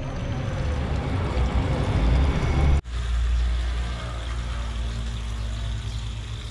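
Steady low motor hum with a rushing noise over it, broken by a brief dropout about three seconds in.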